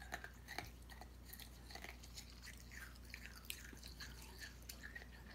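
A child chewing a hard lump of Okinawan brown sugar candy: faint, irregular small crunches and clicks as her teeth work at a piece too hard to chew easily.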